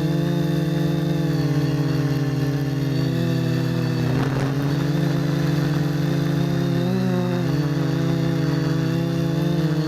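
FPV quadcopter's electric motors and propellers humming steadily in flight, the pitch wavering slightly with throttle changes. There is a brief rush of noise about four seconds in.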